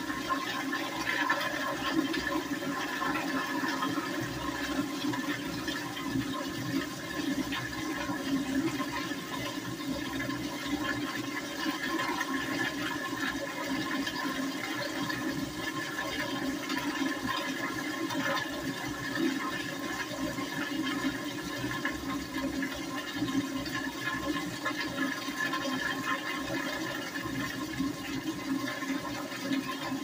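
Commercial toilet's chrome flushometer valve running on, water streaming steadily into the bowl without shutting off: a long, never-ending flush. A steady rush of water with faint steady tones in it.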